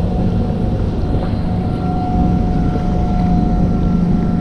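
Wind rumbling on the microphone and choppy water slapping around a kayak as it is paddled, over a steady motor drone.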